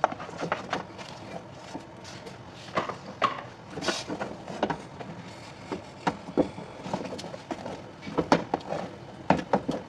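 Irregular wooden knocks and thuds of a wooden cooking tool working fufu dough, with a cluster of louder strikes about three seconds in and again near the end.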